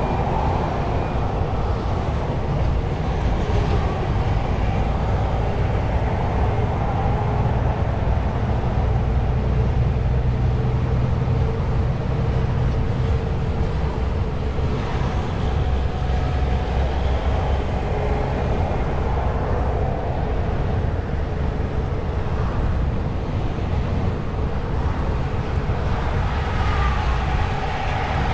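Truck driving: a steady low rumble of engine and road noise that does not let up.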